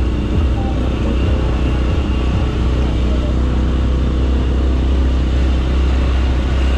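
Viar motor-tricycle engine pulling an odong-odong kiddie ride, running steadily with an unchanging low drone.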